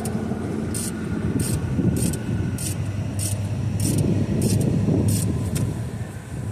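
Hand ratchet wrench turning a starter bolt, its pawl clicking in short bursts about every half second or so as it is swung back and forth, over a steady low rumble of vehicle noise.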